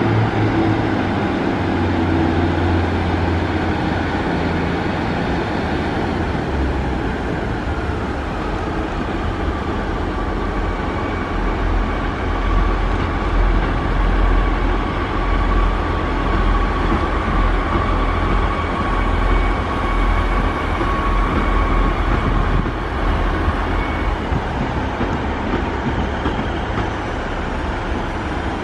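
Northern Sprinter diesel multiple unit moving through the station with a continuous engine and wheel rumble. A thin steady whine joins in about ten seconds in and fades out near the end.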